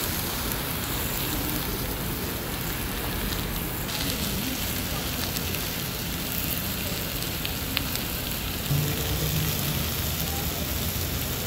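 Meat, bean sprouts and scallions sizzling on the hot griddle ring of a grill-and-hot-pot cooker while being stir-fried with metal tongs, a steady frying hiss with one light click about eight seconds in.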